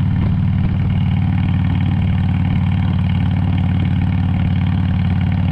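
Harley-Davidson motorcycle's V-twin engine running steadily at an even pitch, with no revving.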